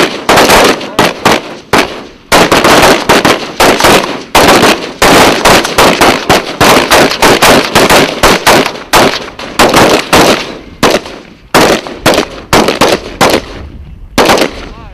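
Rifle fire from several shooters on a firing line: loud, sharp shots in quick, overlapping succession, thinning out near the end.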